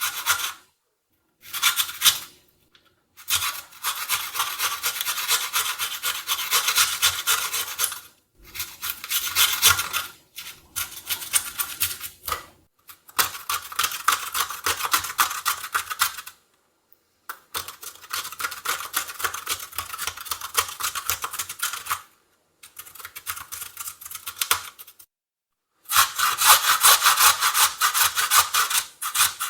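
A carrot grated on a metal kitchen grater: runs of quick rasping strokes, each run lasting a few seconds, broken by short pauses of about a second.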